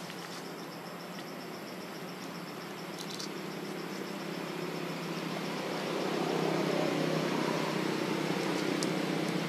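Insects chirping steadily in an even, rapid pulse, over a low hum that grows louder during the second half.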